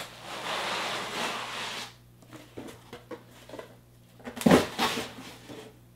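Foam packing being slid and pulled out of a cardboard box: a scraping rustle lasting about two seconds, then a few light taps and a loud thump about four and a half seconds in, with a smaller knock just after.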